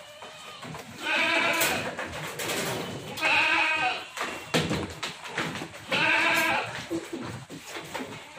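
Goat bleating three times, each a long wavering call of under a second, a couple of seconds apart.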